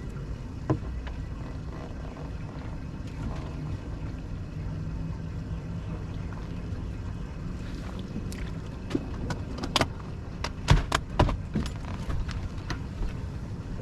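Steady low rumble and hiss of wind and water around a fishing boat. About eight seconds in comes a quick run of sharp knocks and clicks, loudest near the end.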